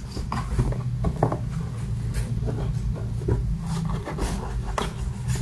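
Light scratching and rustling as kittens paw and scuffle at a cardboard box, in a scatter of short, irregular scrapes and taps.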